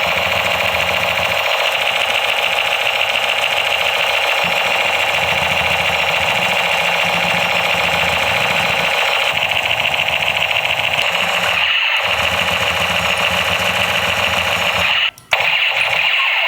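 Battery-powered toy M249 machine gun firing its electronic machine-gun sound effect: a rapid, unbroken stream of gunfire sounds with a low buzz underneath. It cuts out for a moment near the end and starts again.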